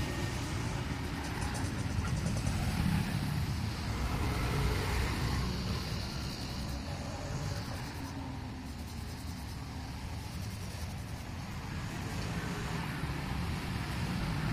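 Steady low rumble of motor vehicles running nearby, like passing road traffic.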